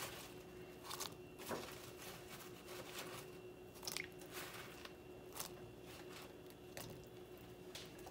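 Fried moong dal bhallas dropped one at a time into a steel bowl of warm water: faint, soft plops and splashes about every second, irregularly spaced. A faint steady hum runs underneath.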